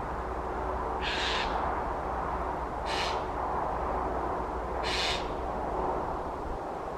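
A bird gives a short, harsh, screeching call three times, about two seconds apart, over a steady background hiss.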